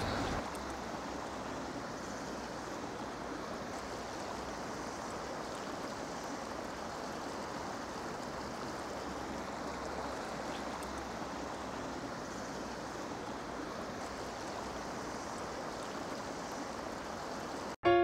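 Shallow mountain stream flowing over rocks: a steady rush of water that cuts off abruptly near the end.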